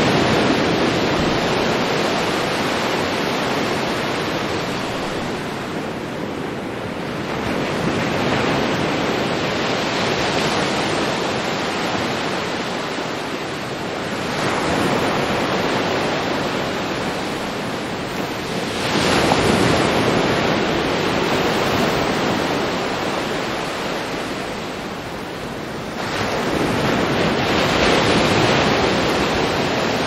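Ocean surf: a continuous rush of waves that swells about four times, every five to seven seconds, as each wave comes in and then ebbs.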